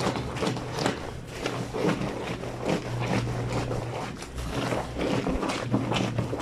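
Wet blanket being scrubbed and worked by hand on a granite washboard sink: irregular wet rubbing, squelching and slapping strokes, with a low hum underneath.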